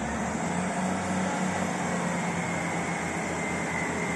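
Diesel multiple unit running slowly into the platform: a steady low engine hum, slowly growing louder, with a thin high whine joining about a second and a half in.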